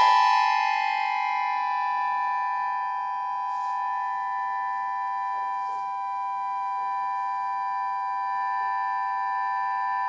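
Button accordion holding a steady, sustained cluster chord, a sho-like drone. It settles in after a louder, denser passage dies away in the first second.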